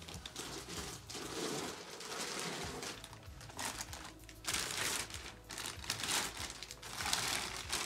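Packaging rustling and crinkling irregularly as statue parts are handled and unwrapped.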